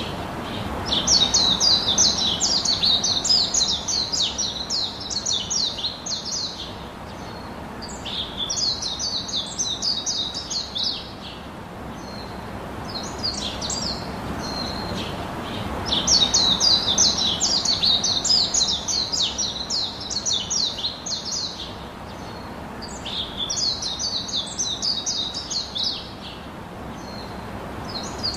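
Birds chirping in quick, high runs of notes, in bouts of a few seconds separated by short pauses.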